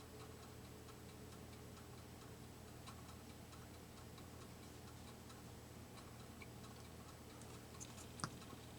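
Near silence: room tone with a low steady hum and faint light ticks, and one sharper tap near the end.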